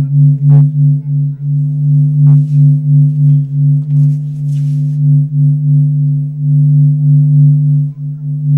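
A loud, low droning tone, a few steady pitches held together, swelling and fading in regular pulses like a singing bowl. A couple of faint clicks and a brief scuff sound over it near the middle.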